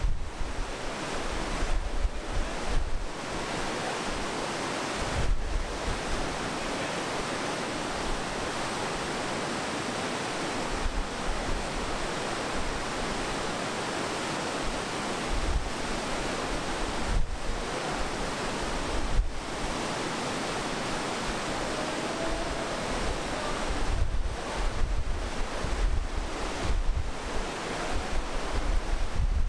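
Whitewater river rushing steadily through a narrow rock gorge. Gusts of wind buffet the microphone at the start and again through the last few seconds.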